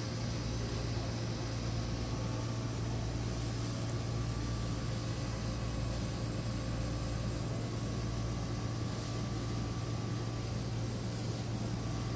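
Beer vending machines' refrigeration units humming steadily: a low drone under an even, fan-like whir, with a few faint steady tones and no change throughout.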